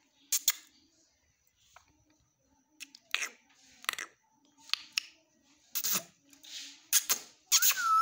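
Indian ringneck parakeet making short, sharp hissing and clicking sounds about a second apart, coming thicker and louder near the end.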